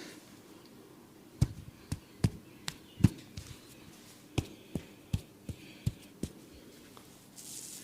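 About a dozen sharp percussive massage strikes on the client's head and body, in two runs of about six, roughly two to three a second. A soft brushing rub follows near the end.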